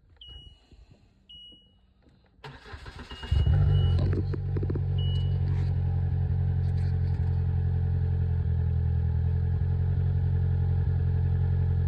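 A few short electronic beeps, then the 2022 Polaris Slingshot's 2.0-litre four-cylinder engine cranks, catches about three seconds in and settles into a steady idle. This is its first run on fresh oil after the oil change.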